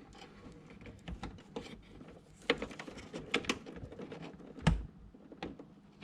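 Scattered plastic clicks and knocks as a DDR3 memory module is unlatched and worked out of its slot on a desktop PC motherboard, the loudest knock a little under five seconds in.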